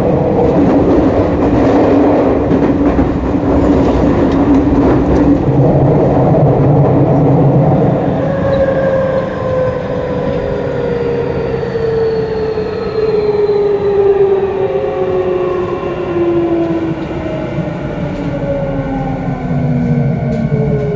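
Tokyu Y500 series electric train running, heard at the gangway between cars: steady wheel-and-rail rumble. From about eight seconds in, the traction motors' whine falls steadily in pitch, a sign that the train is slowing down.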